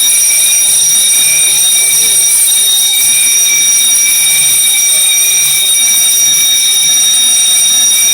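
Building fire alarm of an FM200 fire-suppression system sounding continuously: a loud, steady, high-pitched ringing tone that does not let up.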